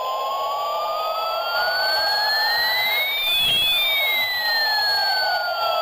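A slowly sweeping, siren-like electronic tone: two pitches glide in opposite directions, one rising and one falling, cross a little past the middle and move apart again, over a steady hum.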